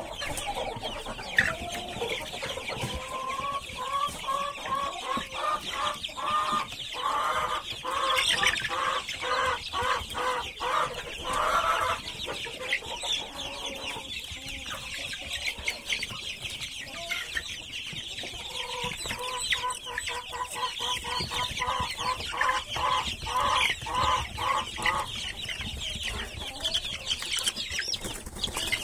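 A flock of four-week-old chicks peeping and cheeping continuously. Runs of lower, quickly repeated calls come in twice: from a few seconds in to about twelve seconds, and again around twenty seconds in.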